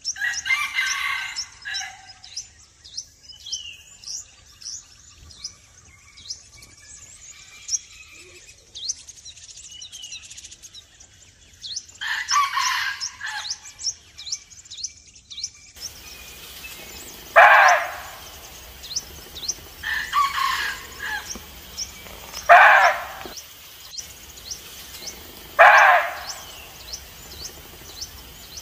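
Small birds chirping throughout. In the second half a red muntjac gives four short, loud barks a few seconds apart, the bark-like call muntjacs typically give on sensing danger.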